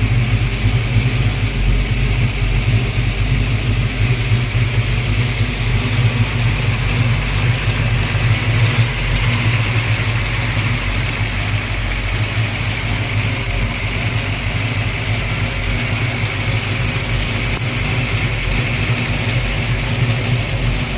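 Ford Falcon XW Fairmont's engine idling steadily.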